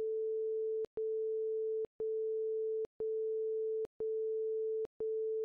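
Interval timer's countdown beeps over the last seconds of a work interval: a steady mid-pitched electronic tone broken by a short gap once a second, with a click at each break, marking the final five-second countdown before the rest.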